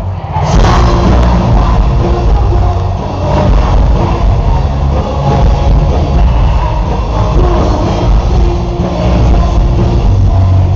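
Rock band playing a song live, loud.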